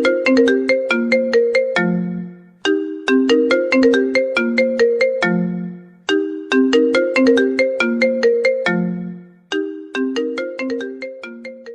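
Mobile phone ringtone: a short melody of quick, sharply struck notes, the same phrase repeating about every three and a half seconds and fading out near the end.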